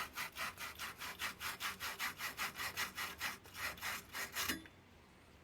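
Wire pipe-cleaning brush (a sanding brush sized for 3/4-inch copper) twisted back and forth on the end of a copper pipe, a quick rhythmic scrubbing rasp that stops about four and a half seconds in. It is scouring the pipe end to bare, clean copper so the solder will bond.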